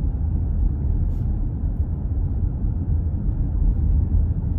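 Steady low rumble of a car driving, heard from inside the cabin: engine and tyre noise with no sharp events.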